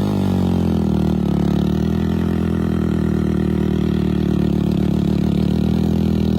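Heavy diesel vehicle engine running steadily under load as the machine climbs an earth slope, holding one pitch with an even throb.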